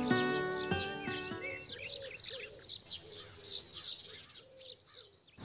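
Songbirds chirping and calling, many quick high chirps with a few lower calls among them. The last plucked guitar notes of background music fade out in the first second or so, and the birdsong cuts off suddenly near the end.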